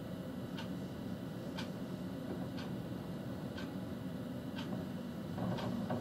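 A light tick repeating evenly about once a second over the steady low hum of a car, typical of a turn-signal or hazard-light indicator clicking inside a stopped car.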